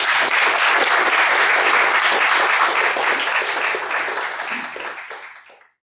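Audience applauding, steady for about four seconds and then dying away.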